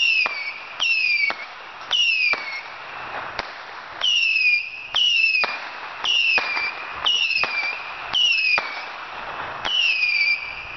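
Whistling firework shooting off a run of shrill whistles, each starting suddenly and falling slightly in pitch, about one a second.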